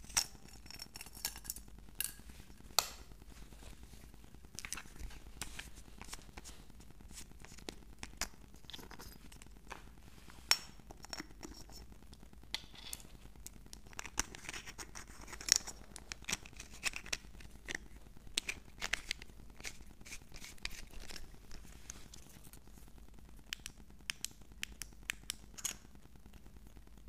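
Handling a metal flashlight: scattered sharp clicks, taps and light scraping as its parts are turned and fitted in the hands, with a few louder clicks.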